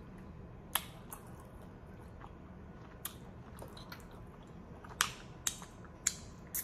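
Close mouth sounds of a person eating saucy barbecue chicken with her fingers: about half a dozen sharp, wet smacks and clicks of chewing and finger-licking, spread out over a faint steady background.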